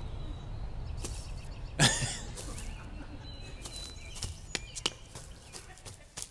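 Quiet front-yard background with faint bird chirps, a brief falling vocal grunt from a man about two seconds in, and a few faint clicks.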